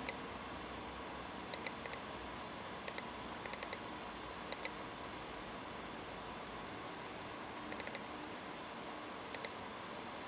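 Scattered light clicks, in twos and threes, like computer keys being pressed, over a steady hiss.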